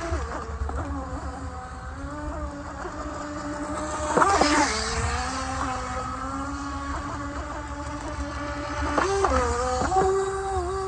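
Radio-controlled scale Volvo Sugga driving, its motor and gears giving a pitched whine that rises and falls with the throttle, with sharp surges about four seconds in and again near nine and ten seconds.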